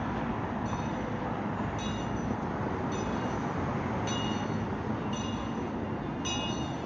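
Steady city traffic rumble, with a short high electronic beep-like tone repeating about once a second.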